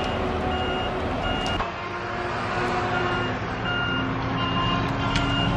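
Backup alarm on heavy logging equipment beeping steadily, about two beeps a second, over the low steady running of the machines' engines.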